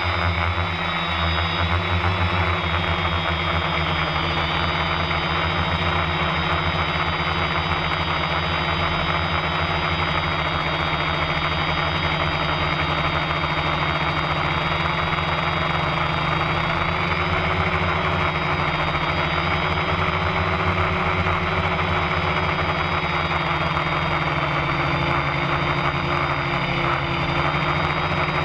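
Electric motors and propellers of a Quanum Venture FPV multirotor running steadily in cruising flight, heard from the onboard camera as a constant hum with several held high tones over an even rushing noise.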